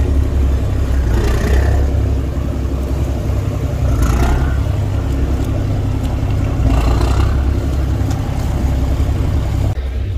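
Steady low rumble of a catamaran speed ferry's engines running alongside the pier, its propellers churning the water at the sterns. A few brief higher sounds rise over it about 1.5, 4 and 7 seconds in.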